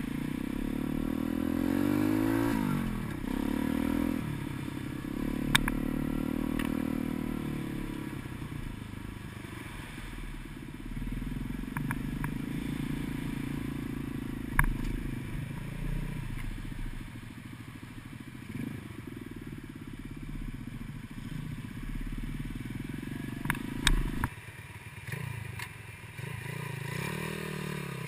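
Gio X33 140 cc pit bike engine running under way, its pitch rising and falling as the throttle opens and closes, with a few sharp knocks from bumps. Most of the way through the engine sound drops away suddenly, then climbs again near the end.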